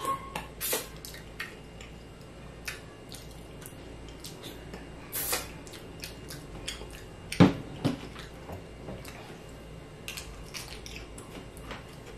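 Close-up eating sounds: wet chewing, lip smacks and finger-licking clicks from someone eating skewered fish balls. Scattered short clicks run throughout, with a louder knock about seven and a half seconds in and a smaller one just after.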